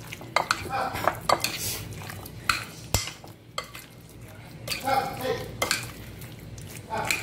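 Metal spoon stirring raw chicken pieces in a glass bowl, with irregular clinks and scrapes of the spoon against the glass.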